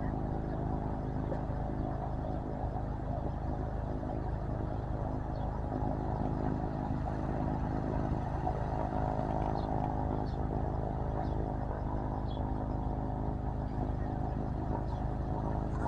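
Single-engine light airplane's engine and propeller running steadily at idle on the ground, an even pitched drone over a low rumble.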